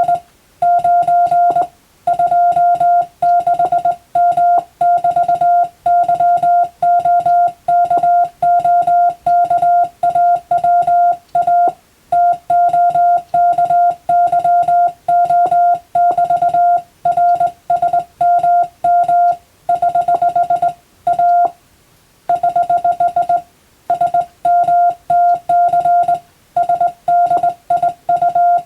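Morse code (CW) sent as a single steady mid-pitched beep keyed on and off in dots and dashes, grouped into words with short gaps and one longer pause about two-thirds of the way through. It is practice telegram text for Morse receiving practice.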